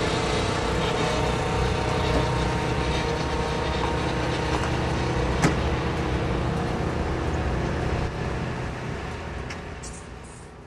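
A vehicle engine running steadily, with a single sharp click about five and a half seconds in, fading out near the end.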